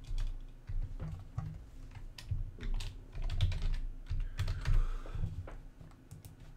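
Typing on a computer keyboard: an irregular run of key clicks, each with a low thump, stopping shortly before the end.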